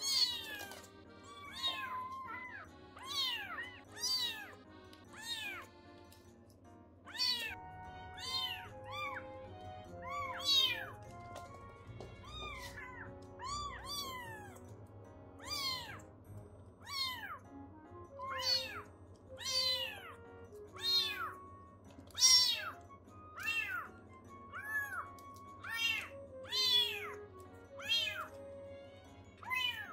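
Baby kittens meowing over and over, high thin calls that rise and fall, about one a second, as they try to climb out of their basket. Background music plays underneath.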